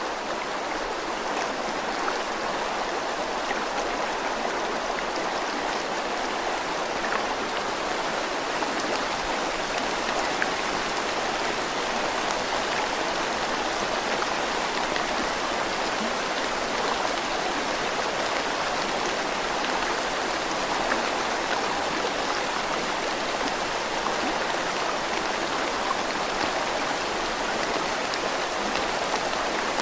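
Steady rushing and splashing of flowing water, like a small stream, with faint patter mixed in.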